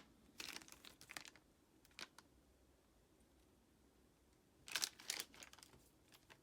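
Packaging being handled during an unboxing: short bursts of crinkling and rustling in two clusters, one in the first second and a louder one about five seconds in, with a single click in between.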